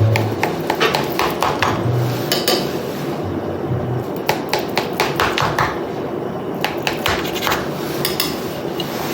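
A knife clicking and knocking against the baking pan while cutting lines through the raw kibbeh down to the bottom: many quick, sharp taps in irregular runs.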